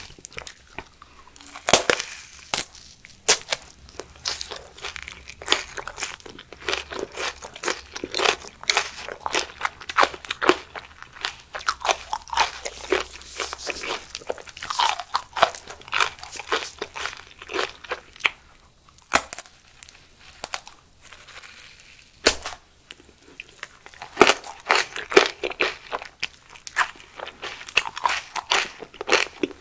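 A person biting off and chewing raw aloe vera leaf with its green skin on, many irregular crunches through the whole stretch.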